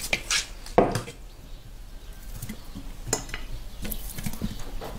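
Clinks and knocks of a metal pan as potatoes are tipped from it into a whole lamb carcass, with soft handling of the meat between. A few sharp clatters, the loudest about a second in and two more near three and four seconds.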